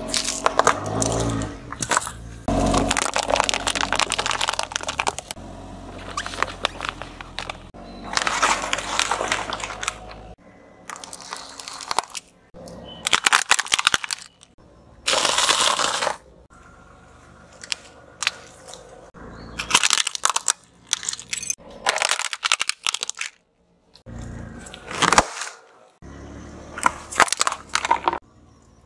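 A string of different objects crushed one after another under a slowly rolling car tyre on asphalt, including turnips and small plastic toy cups: repeated bursts of crunching, cracking and crumpling of a second or two each, with short pauses between them.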